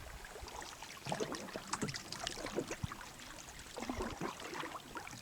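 Canoe paddling: paddle blades dipping and water splashing, dripping and gurgling in short, irregular bits.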